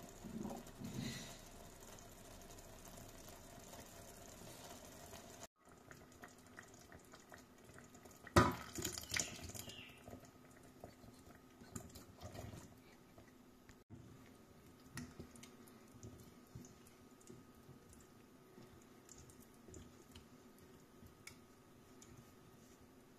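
Chickpeas and their liquid tipped from a glass jar into a stainless steel pot of stew, splashing loudest about eight seconds in. Around this are a low simmer and a few small clinks.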